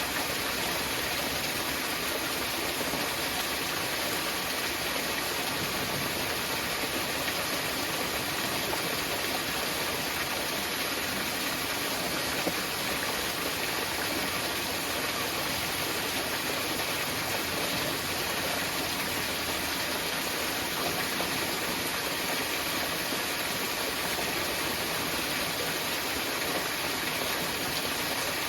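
Small mountain waterfall: a steady rush of falling water.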